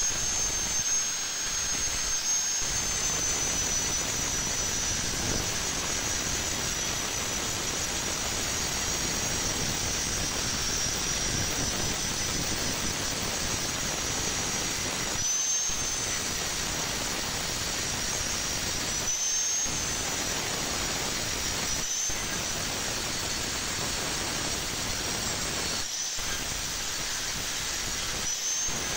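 Angle grinder grinding a weld bead flush on thin square iron tubing: the rasp of the disc on metal under a steady high whine. The noise dips and the whine rises briefly about five times in the second half.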